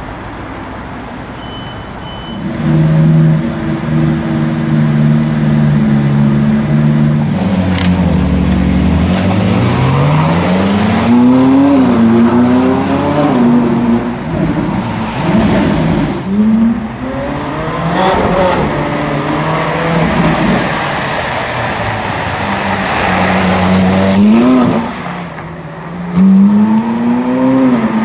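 Ferrari 458 Italia's V8 running at low revs, then accelerating hard. The revs climb and drop back several times as it shifts up through the gears, with further hard pulls near the end.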